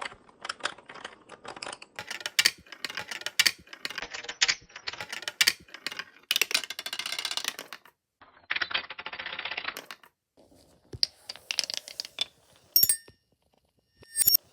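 Marbles running down a marble run: a quick series of sharp clicks and clacks, then two stretches of steady rattling midway, then scattered ticks near the end.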